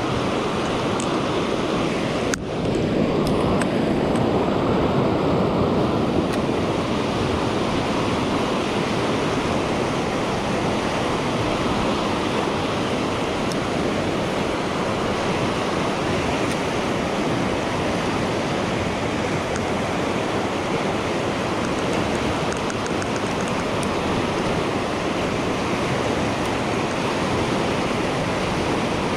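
River rapids rushing steadily over rocks, a continuous churn of whitewater, with a single sharp click about two seconds in.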